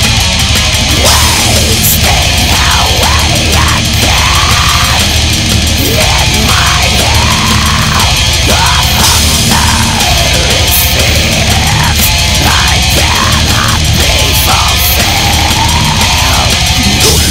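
Death metal recording played loud: distorted guitars over fast drums, with bending, gliding lines in the midrange from about a second in.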